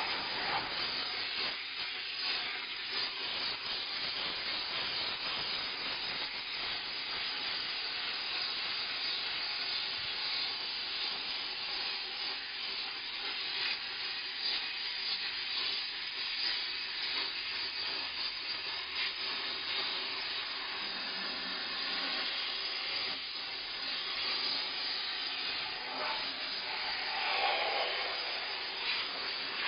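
Steam mop letting out a steady, continuous hiss of steam.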